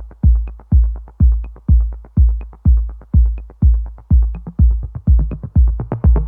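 Electronic background music driven by a steady kick drum at about two beats a second; a synth melody joins right at the end.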